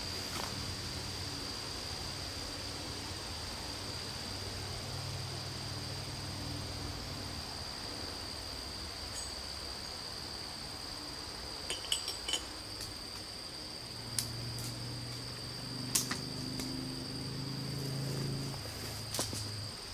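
Steady high-pitched insect drone, with a low hum that swells twice. In the second half come a few sharp clicks from a climber shifting on screw-in tree steps.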